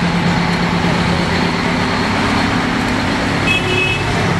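Steady drone of a heavy truck engine idling under street traffic noise, with a short high-pitched tone about three and a half seconds in.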